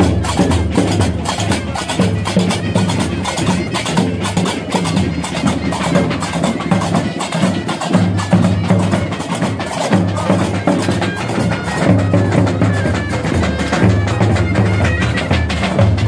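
Traditional Moroccan street percussion band playing: large double-headed drums beating under a fast, steady clatter of hand percussion, with a pitched drone underneath.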